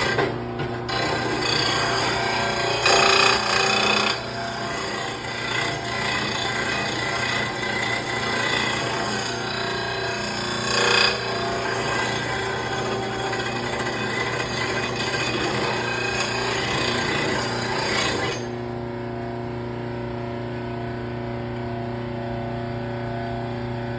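A 2/3-horsepower VEVOR electric blade sharpener grinds a steel lawn mower blade: a harsh, steady grinding over the motor's hum, swelling louder about three seconds in and again around eleven seconds. About eighteen seconds in the grinding stops abruptly, leaving only the steady hum of the motor and freely spinning wheel.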